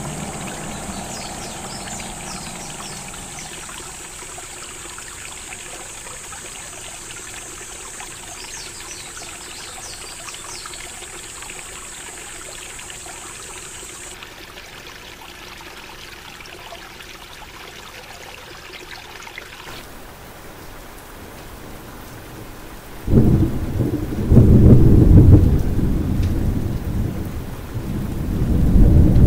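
Summer countryside ambience with insects keeping up a steady high drone that stops about halfway through. Near the end it gives way to loud rumbling thunder in a heavy rainstorm.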